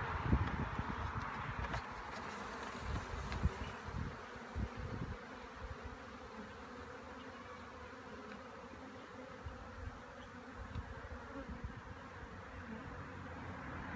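Honeybees buzzing steadily over an open hive full of bee-covered frames. A few low thumps sound in the first few seconds.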